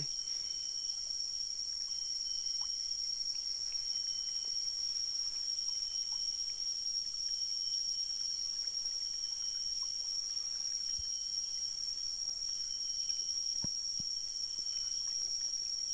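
Steady high-pitched drone of forest insects, unbroken throughout, over a faint hiss of flowing stream water; a couple of soft knocks near the end.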